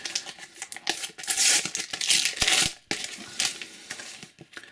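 Crinkling and tearing of a Panini sticker packet's wrapper, loudest in a burst of rips between about one and three seconds in, with lighter rustles and clicks after.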